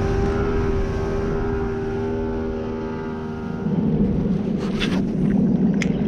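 Boat outboard motor running steadily under way, fading slightly over about three seconds. It then gives way to rougher low rumbling noise with a few short clicks near the end.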